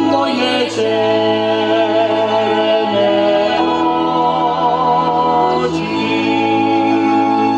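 Moravian folk song sung by two women and a man together through stage microphones, in long held notes.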